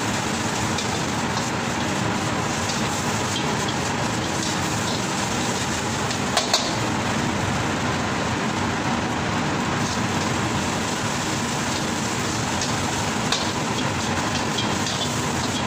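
Restaurant gas wok burner running with a loud, steady rushing noise under a wok of frying rice, with a few sharp metal clinks of the ladle on the wok about six seconds in and again past halfway.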